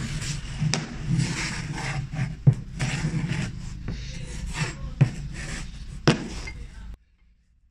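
Square steel bars handled on a wooden tabletop: scraping and sliding, with a few sharp metal knocks as the pieces are set down and pushed together. The sound cuts off suddenly near the end.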